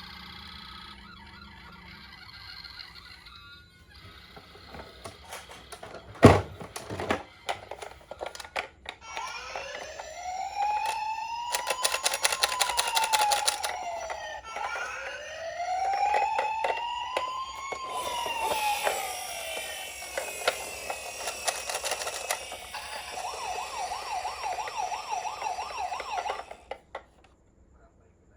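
Toy ambulance's electronic siren: two slow wails rising and falling in pitch, then a fast warble that cuts off suddenly near the end. A rapid clicking rattle runs alongside parts of the siren, and a single sharp knock comes about six seconds in.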